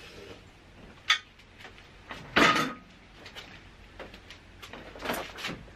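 Handling noises as a ratchet tie-down strap holding a scooter to its stand is undone: a sharp click about a second in, then two short clattering rasps.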